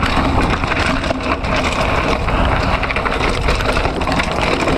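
Hardtail mountain bike, a Giant Talon 1, descending a rocky dirt trail: tyres crunching and rumbling over rock and loose stones, with a steady clatter of small knocks and rattles from the bike.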